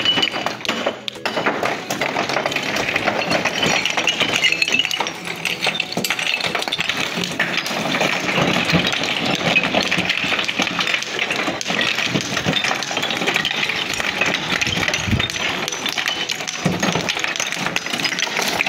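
Flat natural stone slabs clinking and clattering against one another as they are handled and thrown off a truck bed, many sharp knocks close together.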